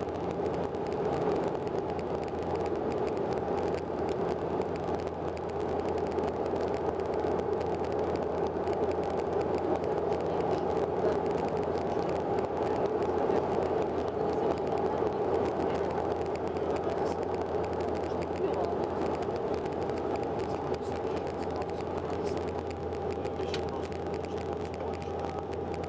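Cabin noise inside a Bombardier Dash 8-Q400 turboprop in flight on approach. The six-bladed propellers and turboprop engines make a steady drone with a constant low hum.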